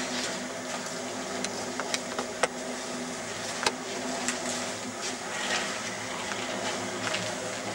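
A steady low machine hum with about half a dozen sharp taps and clicks scattered through it, such as masonry tools knocking on brick.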